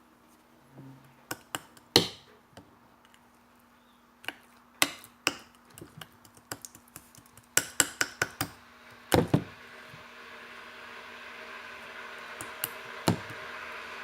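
Slime-making handling noise: a scattered run of sharp clicks and taps, clustered in the middle, as hard containers and tools are knocked and set down. From about ten seconds in, a steady background hiss with a low hum comes up under a few last taps.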